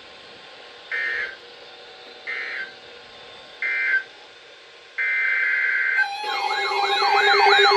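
Emergency Alert System digital data bursts: three short screechy squawks about a second apart, the end-of-message code closing a warning, then a longer burst about five seconds in that opens the next alert's header. About six seconds in, a loud warbling, siren-like alert tone starts over a steady tone.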